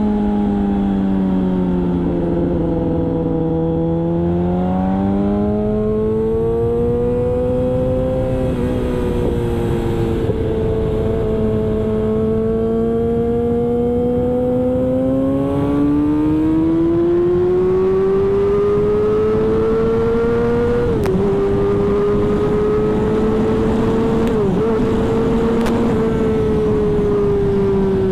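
Motorcycle engine running under way at speed, probably a Yamaha R6's inline-four. Its pitch slowly falls, climbs and falls again as the revs change, with two quick dips in pitch in the second half. Wind noise rumbles underneath.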